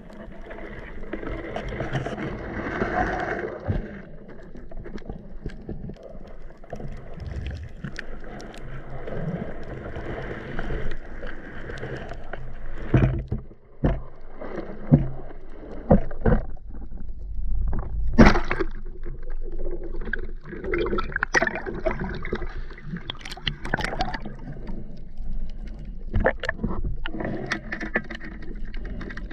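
Sound picked up by a submerged camera in shallow sea: water moving and gurgling around the housing, with irregular knocks and clicks.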